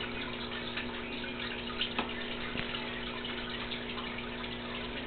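Aquarium filter running: a steady trickle and bubble of moving water over a low electrical hum, with a couple of faint clicks about two seconds in.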